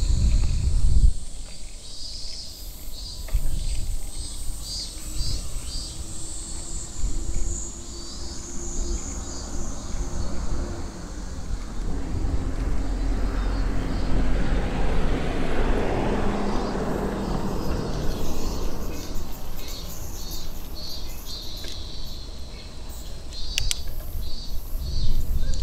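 Cicadas buzzing in a steady chorus, with pulsing high calls, over low wind rumble on the microphone of a moving bicycle. A broad rushing noise with a low hum swells and fades past the middle.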